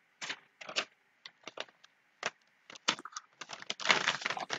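Plastic courier bag crinkling and rustling as it is handled, in short irregular bursts that grow busier and louder in the last second or so.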